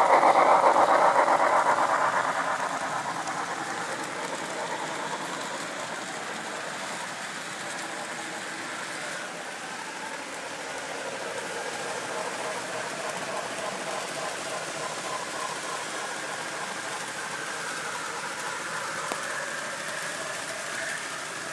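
HO-scale model train running on its track, with wheels and motor making a steady rattling hiss. It is loudest at the start, falls away over the first two seconds or so, and then runs on steadily.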